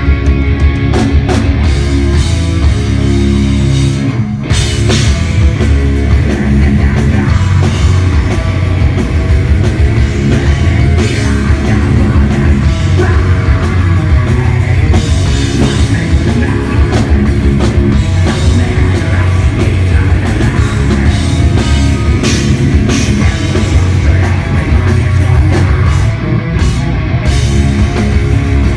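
Live heavy metal played loud: distorted electric guitars, bass guitar and a fast drum kit.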